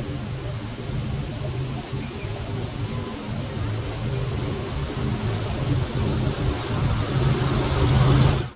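1998 Snapper riding mower's Briggs & Stratton engine running steadily as the mower drives toward the listener, growing louder as it nears. The sound cuts off abruptly at the very end.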